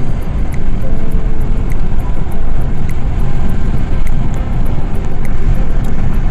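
A car driving at highway speed: a steady low rumble of road and wind noise, with faint background music ticking along in a regular beat.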